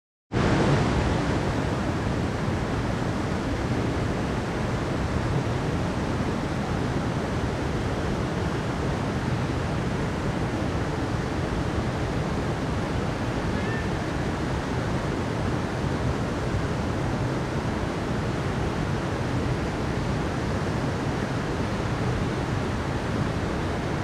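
Mountain stream rushing over rocks in a small cascade, a steady, even sound of running water that starts suddenly.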